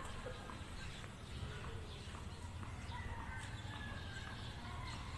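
Faint, distant tennis rally: a few sharp knocks of the ball on racket and hard court over a steady low rumble.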